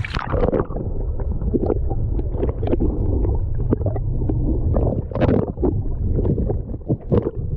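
Water slapping and sloshing against a small fishing boat at sea, with wind buffeting the microphone over a steady low rumble.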